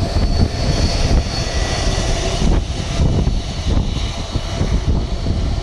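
Airbus A330-300 jet engines at taxi power as the airliner rolls close past: a steady jet whine over a low rumble.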